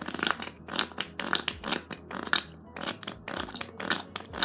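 Glue and foam slime mixture being stirred in a bowl: wet, sticky squelches, about two or three a second.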